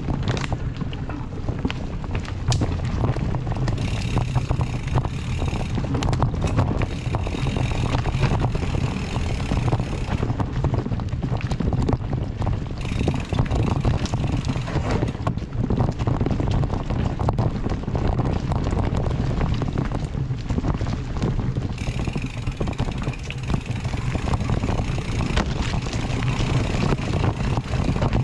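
Mountain bike ridden along a rooty dirt trail: the knobby tyres rumble over the ground and the bike rattles and clicks over bumps, with wind rushing on the camera microphone. A higher buzz comes and goes several times along the way.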